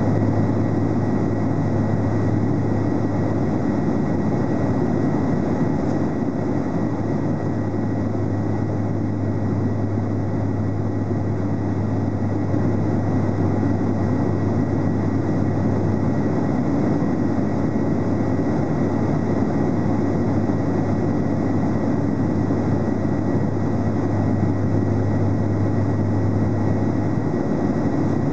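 Steady cabin noise inside a Dassault Falcon 2000LX business jet cruising at about Mach 0.80: an even rush of airflow over the fuselage with a low engine drone and a faint thin whine held on one pitch.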